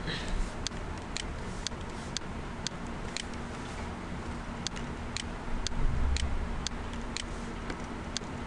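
Light, sharp ticks at a fairly even pace of about two a second, over low room noise, with a dull low thump about six seconds in.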